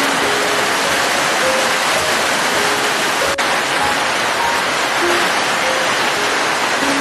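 Steady rain, an even hiss, with a soft, slow melody of single held notes at changing pitches laid over it.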